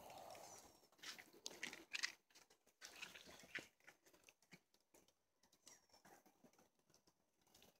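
Faint crackling of burning newspaper and dry kindling catching in an adobe oven's firebox, a scattering of sharp pops and snaps mostly in the first four seconds.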